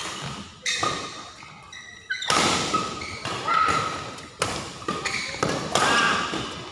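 Badminton doubles rally: rackets striking the shuttlecock again and again, with sharp hits echoing in a large hall. Court shoes squeak on the mat between the strokes.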